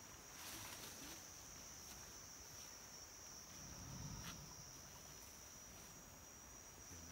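Faint forest ambience: a steady high-pitched insect drone, with a few faint clicks or rustles.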